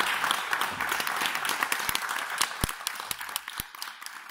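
Applause from a small group of people, fading away over a few seconds into a handful of scattered single claps.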